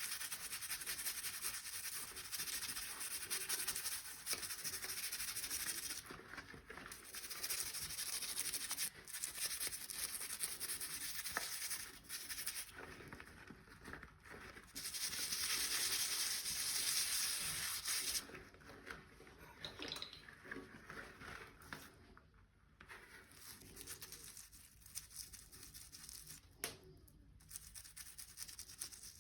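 Scrubbing with a brush in stretches of a few seconds, with short pauses between them; lighter, more broken rubbing in the last third.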